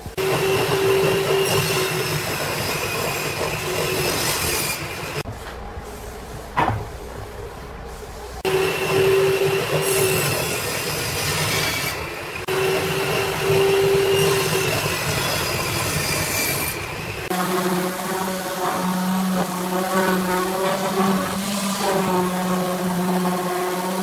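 Table saw cutting through wooden boards in several passes, a steady high whine over the cutting noise, with quieter gaps between cuts and a sharp click in one of them. About seventeen seconds in it gives way to a random orbital sander running with a steady hum.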